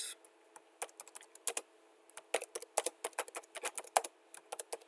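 Typing on a computer keyboard: an irregular run of key clicks, with a brief pause near two seconds in and then a quicker run of keystrokes.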